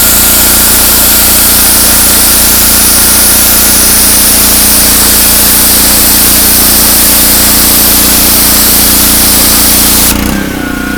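Engine-driven pressure washer running, with the loud steady hiss of its high-pressure water spray over the engine's steady note. About ten seconds in, the spray cuts off suddenly and the engine keeps running on its own.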